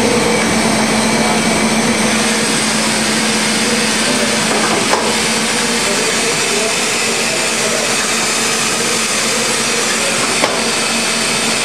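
KBA Rapida four-colour B2 sheetfed offset printing press running at a steady speed: a dense, even mechanical clatter with a steady hum. A light click comes about five seconds in and again near the end.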